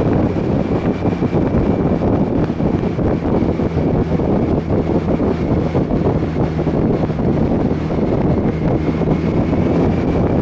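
Motorcycle cruising at a steady speed: the engine runs evenly under heavy, steady wind noise on the microphone.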